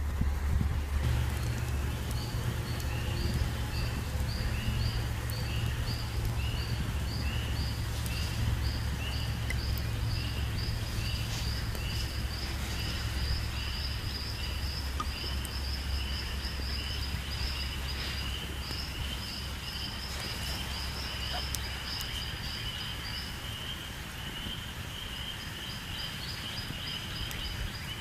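Outdoor ambience: a steady low rumble, with a high, pulsed chirping call repeating about twice a second and coming closer together later on. A few faint pops sound now and then.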